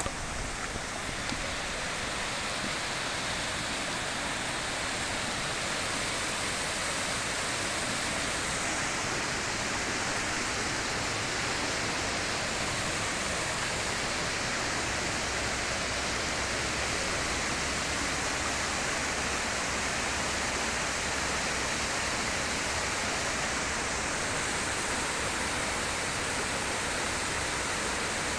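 Fast-flowing shallow mountain river rushing over rocks: a steady, even murmur of running water.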